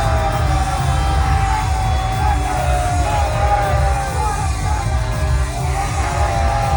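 Loud pop music with a singing voice over a heavy pulsing bass beat.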